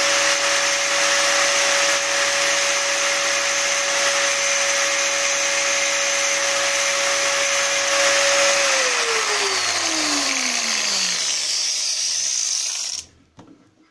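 Angle grinder running with a steady whine while its cutting disc grinds the pattern into a metal key blank. About nine seconds in, the whine falls steadily in pitch as the grinder winds down, and the sound cuts off abruptly near the end.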